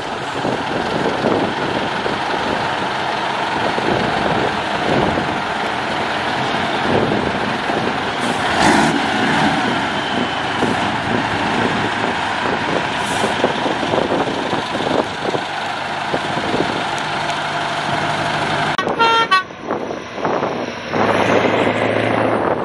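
Scania 142's 14-litre V8 diesel running as the truck drives slowly past. A truck horn toots briefly near the end.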